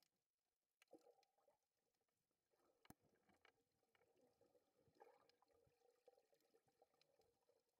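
Near silence: faint underwater ambience through the camera housing, with scattered faint clicks and crackles.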